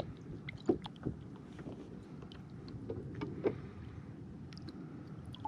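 Quiet handling sounds aboard a fishing kayak: a few light knocks and taps against the plastic hull over a faint low background.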